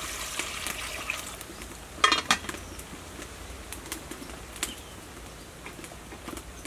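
Water poured from a plastic scoop into an aluminium cooking pot, then a loud metal clank about two seconds in as the pot's aluminium lid is set on. After that a wood fire crackles under the pot with scattered sharp snaps.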